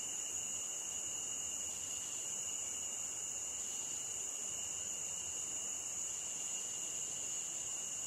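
Night insects chirring steadily, a continuous high-pitched trill with a fainter lower tone beneath it.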